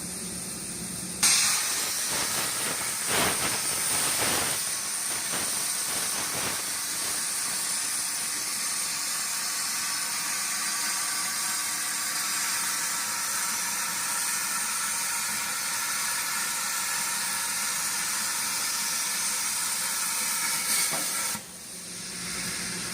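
CNC plasma cutter's torch arc striking about a second in and cutting with a loud, steady hiss, then shutting off suddenly near the end.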